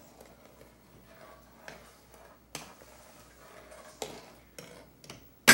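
Long metal spoon stirring in a large aluminium stockpot of boiling liquid, giving scattered light clinks and knocks against the pot, with one sharp, loud knock right at the end.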